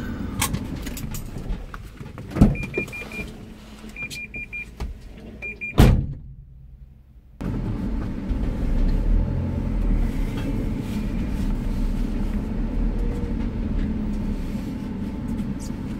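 Van engine running, heard from inside the cab as a steady low rumble. Two sharp knocks and three short runs of high electronic beeps come in the first six seconds. The sound then drops out for about a second and a half before the engine rumble resumes steadily.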